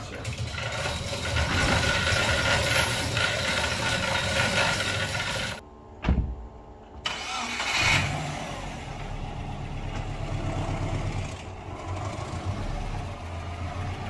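A sectional garage door being hauled open by its hand chain, rattling as it rolls up for about five seconds. After a short break, a Subaru Forester 2.5 XT's turbocharged 2.5-litre flat-four runs at low revs with its rear silencer removed as the car creeps forward.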